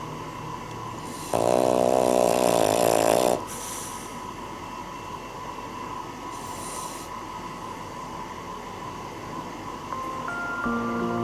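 Cavalier King Charles Spaniel snoring: one loud snore with a wavering pitch starting about a second in and lasting about two seconds, then quieter breathing with a softer breath around six seconds in.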